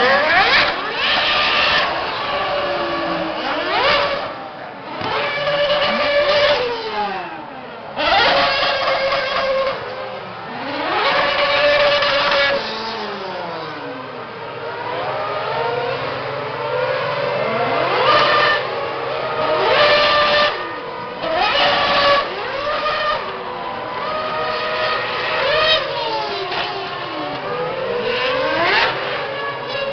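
Several 2010 Formula One cars' 2.4-litre V8 engines revving high and launching away one after another on practice starts. Each engine's pitch climbs steeply and then falls away, with a new surge every couple of seconds.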